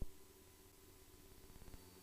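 Near silence on the intercom between radio calls: a faint steady hum, with a brief click at the start.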